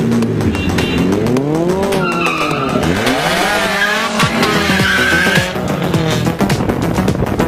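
Modified Suzuki Swift hatchbacks with loud aftermarket exhausts, engines revved up and dropped back several times so the pitch swells and falls, with sharp pops and crackles, over background music.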